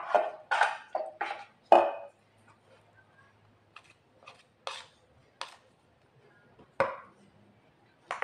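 Metal ladle and spoon clinking and scraping against a stainless steel bowl and blender jar while dough is scooped out: a run of irregular sharp knocks, several close together in the first two seconds, then sparser ones.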